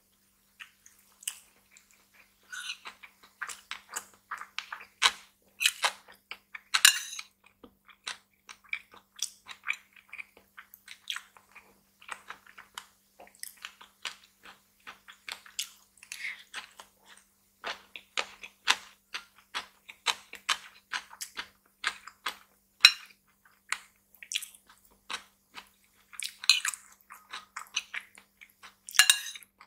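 Close-miked chewing of a mouthful of rice and cooked vegetables: a steady run of small wet mouth clicks and crackles. Now and then a metal spoon scoops against the ceramic bowl.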